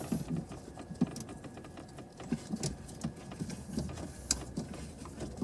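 Light, irregular clicks and taps of plastic steering-column parts and a wiring connector being handled and pushed into place.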